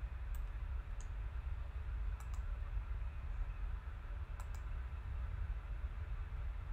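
A computer mouse clicking a few times, two of the clicks coming as quick pairs, over a steady low room hum.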